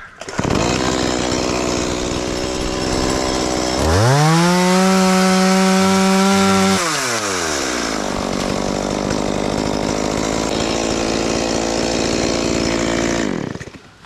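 Stihl chainsaw running steadily, then revved to full throttle about four seconds in for about three seconds as it cuts through a mango branch. It drops back to idle and cuts off near the end.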